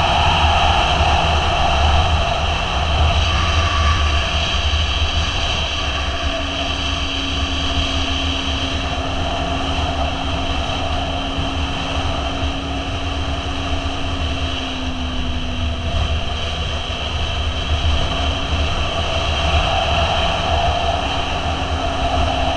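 Motorcycle cruising at a steady speed: engine running evenly under heavy wind rush on the camera microphone.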